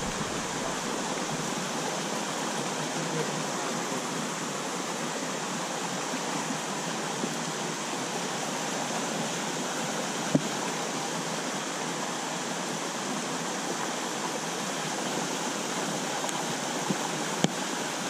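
Steady rush of a small trout stream pouring over a rock ledge in a low cascade, running high and muddy after a thunderstorm. One sharp click about ten seconds in.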